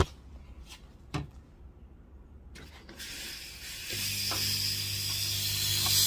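A few short knocks as the portafilter is handled and locked into a Milesto Elaine M3 semi-automatic espresso machine. About three seconds in a hiss starts, and a second later the machine's pump comes on with a steady low hum as the shot begins brewing.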